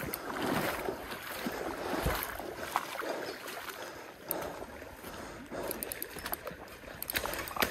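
Creek water sloshing and splashing, with scattered scuffing steps on a gravel bank and some wind on the microphone.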